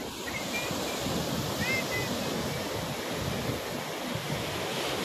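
Sea surf breaking and washing up on a sandy beach: a steady wash of noise, with wind on the microphone.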